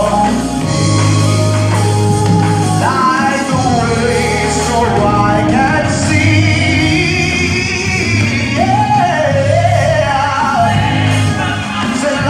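Live gospel song: a male lead singer on a microphone with backing singers, over a band with held low bass notes.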